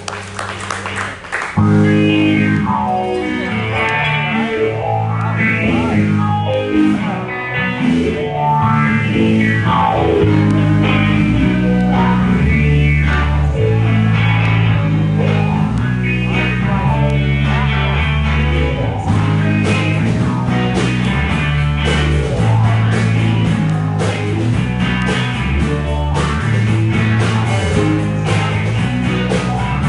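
Live rock band of two electric guitars, bass guitar and drum kit playing. The full band kicks in about a second and a half in, and the low bass line comes in strongly around ten seconds in.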